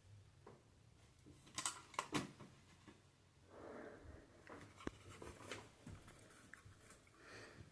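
A few sharp clicks and knocks of handling in a quiet room, loudest around two seconds in, with a soft breath-like rustle in between.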